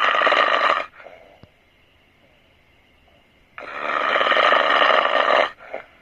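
Loud human snoring: one snore dies away about a second in, then after a quiet breath a longer snore of about two seconds, ending with a brief catch.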